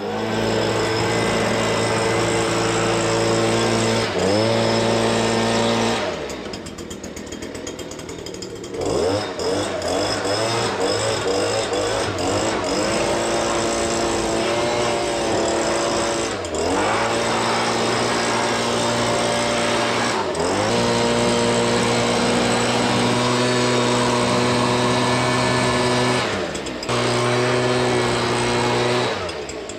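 Small engine running at high speed, its pitch dropping and picking back up several times as the throttle changes.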